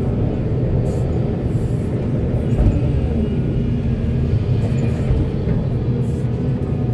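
Heavy diesel engine running steadily, a low drone with a held hum, typical of an excavator working while loading a truck.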